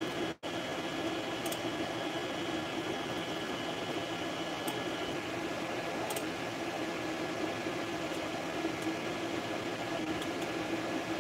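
Creality FDM 3D printer running mid-print: a steady whir of its cooling fans with faint motor whine and a few light ticks as the print head moves. A high thin tone stops about halfway through, and the sound cuts out for an instant just after the start.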